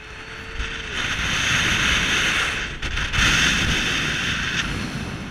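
Wind rushing over the microphone of a rider on a tall chain swing ride as the seats swing through the air at height. The rush swells about half a second in, dips briefly near the middle and eases off near the end.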